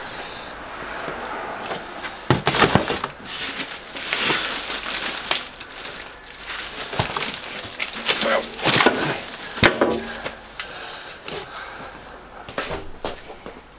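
Bandsaw packing being handled: plastic wrap crinkling and polystyrene foam rubbing and creaking as a heavy plastic-wrapped part is lifted out of the box and set down, with a few sharp knocks along the way.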